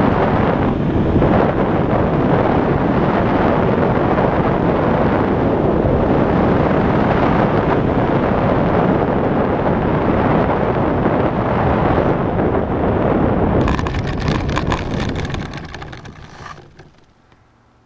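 Heavy wind noise on a wingtip-mounted camera while a scratch-built RC airplane with an Ohlsson & Rice Compact gasoline engine flies low. About fourteen seconds in, a rapid rattling clatter comes in as the wheels touch down and roll over ploughed ground, then the noise dies away to quiet.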